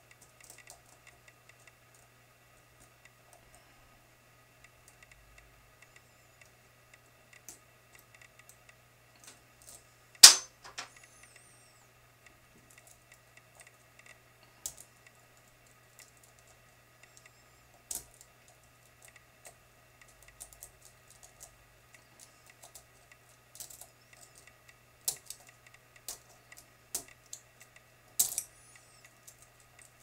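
Lock picks working the pins of a Medeco biaxial mortise cylinder: scattered light metallic clicks and ticks as the pins are probed for a hidden mushroom pin. One sharp click about ten seconds in is the loudest, with a few more sharp clicks in the last several seconds.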